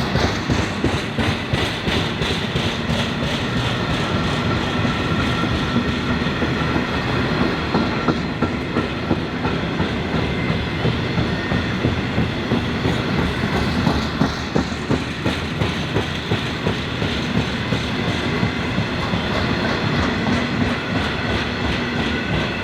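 A train passing close by at speed, its wheels clicking rhythmically over rail joints in a steady run of beats.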